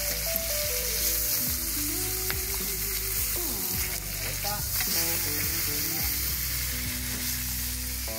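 Cuttlefish sizzling steadily on a hot griddle (plancha) turned up to full heat.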